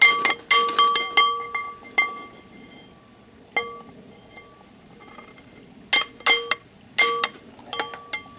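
Hammer striking the handle end of a steel pry bar wedged under an old rear axle seal in a 1977 Ford F250 hub: sharp metallic clinks, each ringing on in a clear tone. The blows come in quick bunches of several strikes, with a lone blow and a pause in the middle.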